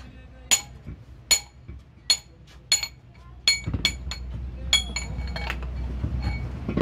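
Hammer blows on a steel drift driving a king pin bush in a truck's steering spindle: sharp, ringing metal clinks, about one every 0.7 s at first, then quicker and more irregular in the second half.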